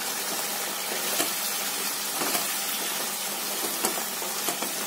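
Poppy-seed and coconut paste with pointed gourds sizzling in oil in a nonstick kadai, with a spatula stirring and scraping the pan now and then. The paste has begun to release its oil.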